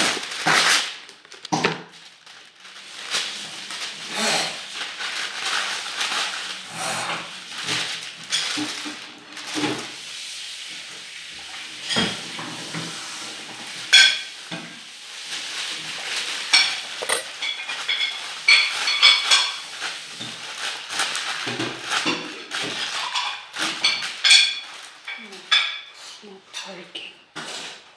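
A sheet of baking paper pulled off its roll, torn and crinkled by hand, giving irregular rustles and crackles. A few sharp clinks of kitchen dishes come through, most of them between about 14 and 20 seconds in.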